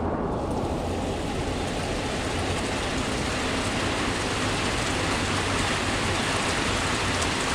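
Heavy rain falling steadily. The rain sounds muffled at first and brightens over the first second or two.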